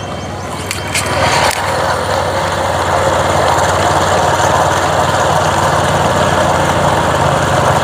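Small motorcycle engines running steadily at low speed, a constant-pitch drone with a rushing noise over it. There is a brief knock about one and a half seconds in.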